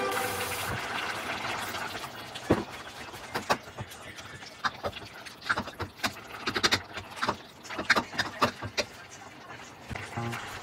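A plastic ladle stirring a pot of minestrone in an enamelled Le Creuset pot, giving irregular soft knocks and scrapes against the pot. There is a faint hiss in the first couple of seconds.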